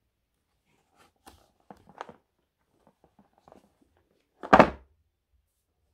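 Cardboard toothbrush box handled, with a few light taps and scrapes, then set down on a bed with a thump about four and a half seconds in, the loudest sound.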